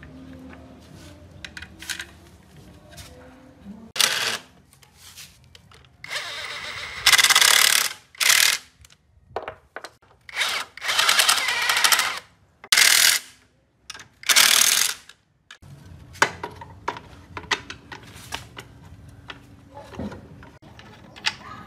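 Cordless power driver run in several short bursts, driving the bolts of a clutch pressure plate onto an engine flywheel, with light metal clicks and knocks from tools and parts between and after the bursts.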